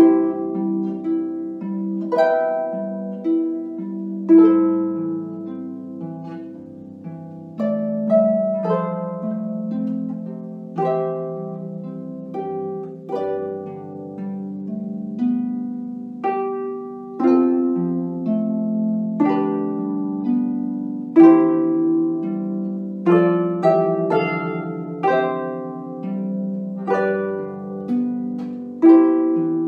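Solo concert harp playing a slow melody over chords and low bass notes, each plucked string ringing on and fading, with a fresh pluck or chord every second or two.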